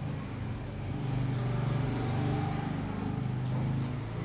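Motor vehicle engine running nearby, a steady low hum that grows louder about a second in and eases off near the end.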